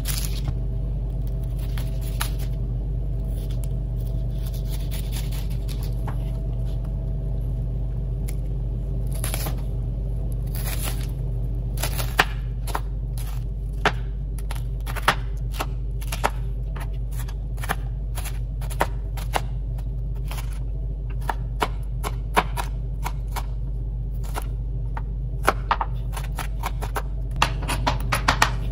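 A kitchen knife chopping an onion on a plastic cutting board: sharp, irregular taps, few at first and then coming thickly in quick runs from about nine seconds in. A steady low hum lies under it all.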